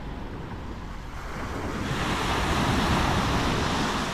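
Small waves breaking and washing up a sandy shore, one wash swelling louder about halfway through, with wind rumbling on the microphone.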